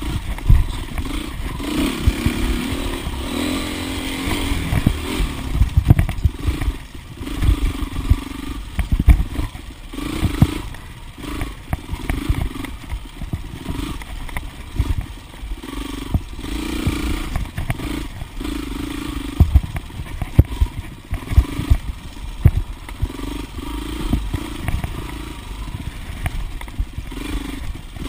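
A 2008 Husqvarna TXC 450's single-cylinder four-stroke engine is ridden hard off-road, revving up and falling back over and over as the throttle is worked. Frequent knocks and clatter come from the bike as it goes over the rough trail.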